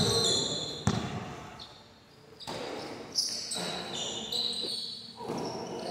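Basketball bouncing on a concrete court during play: a few separate bounces, with high squeaks between them.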